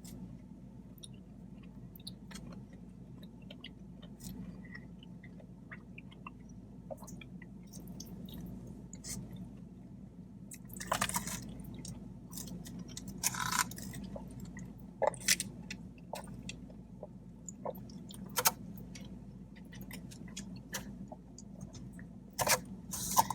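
A person chewing food close to the microphone: soft wet chewing and small mouth clicks, with several louder smacks in the second half. A faint steady low hum runs underneath.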